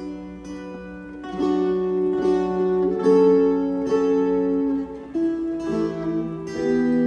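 Slow instrumental music on a plucked string instrument: single picked notes about once a second that ring on over one another.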